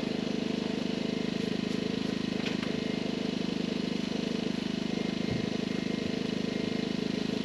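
A small engine running steadily at idle, an even hum with a fine regular pulse. A couple of faint knocks come through it.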